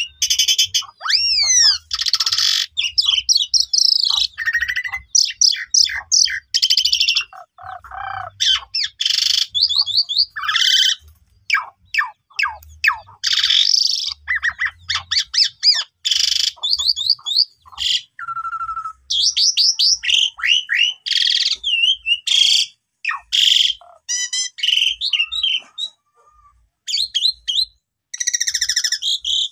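Javan pied starling (jalak suren) in full song: a rapid, varied run of whistles sweeping up and down, chattering notes and harsh squawks, broken by short pauses.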